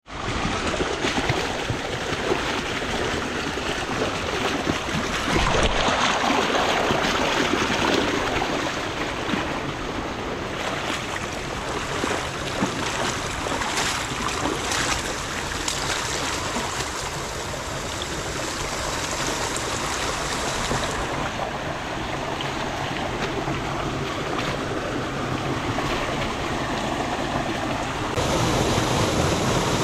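Steady rushing of flowing water, as of a stream, with its texture changing abruptly a few times.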